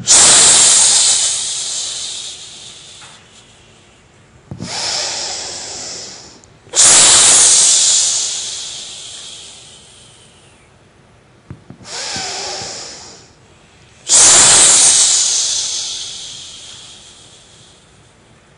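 A man breathing hard close to a microphone as part of a qigong breathing exercise. There are three long, forceful breaths blown out, at the start, about seven seconds in and near fourteen seconds in. Each starts sharply and fades over about three seconds, with shorter, softer in-breaths between them.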